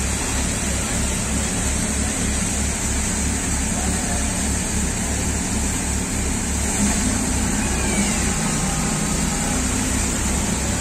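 Threshing machine running at full speed while being fed sheaves: a steady mechanical din with a low throb pulsing about four times a second, under the rushing of straw and chaff blown out of its chute.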